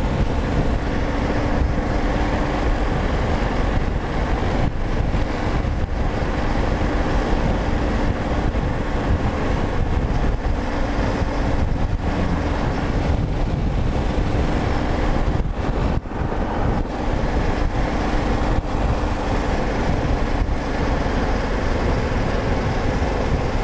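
Yamaha XT660Z Ténéré's single-cylinder engine running steadily at road speed, mixed with heavy wind rush over the microphone.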